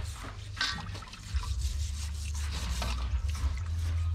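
Water dripping and splashing in a steel basin as freshwater mussels are washed, over a steady low rumble.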